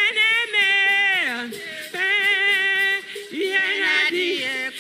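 Singing: a single voice holding long notes and sliding between them, with a clear drop in pitch about a second in.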